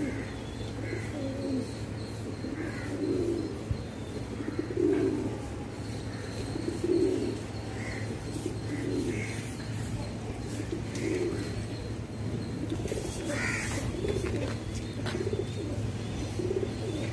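Indian fantail pigeons cooing over and over, low calls about every second or two, with a short burst of noise about two-thirds of the way in.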